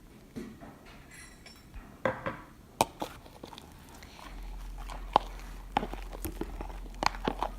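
A spoon stirring glue and shaving cream together in a bowl: scattered clicks and taps against the bowl with soft, wet squishing.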